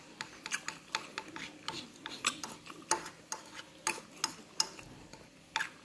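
A person chewing crisp crystal guava, mouth closed: a run of soft, irregular crunches and wet mouth clicks.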